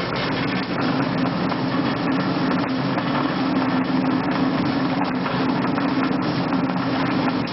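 Pellet mill running steadily with sawdust feeding in: a loud, continuous machine noise with a steady low hum.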